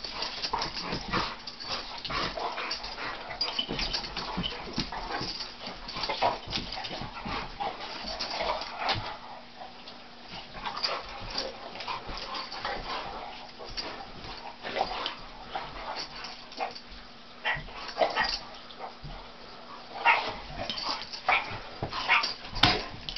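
Two dogs, a Chinese shar pei and an American bulldog–boxer mix, play-fighting: a steady run of short scuffles, snaps and knocks, with a few whines and yips among them.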